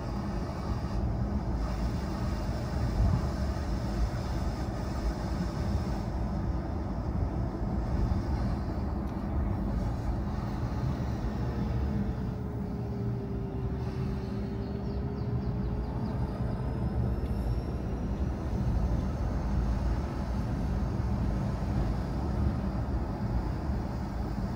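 A car driving, with steady engine and tyre noise and a faint tone about halfway through that falls in pitch and then rises again.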